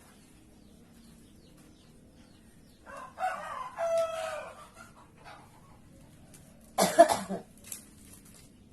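A rooster crows once about three seconds in, a long call that drops in pitch at the end. A few seconds later comes a single short, loud cough.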